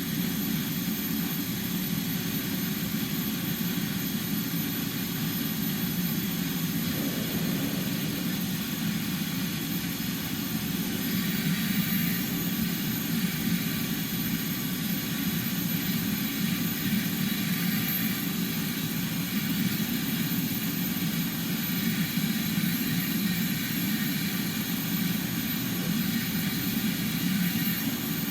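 Vacuum cleaner running steadily and without a break, sucking up dust and debris from car seats.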